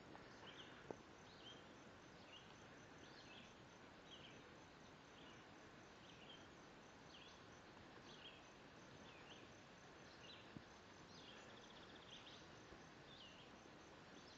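Faint bird chirps: short high notes repeated steadily, about one or two a second, over a quiet outdoor background.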